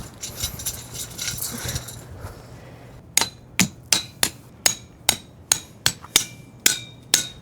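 Hammer driving a metal tent stake: a steady run of sharp blows, about three a second, each with a short metallic ring, starting about three seconds in after some faint clinking.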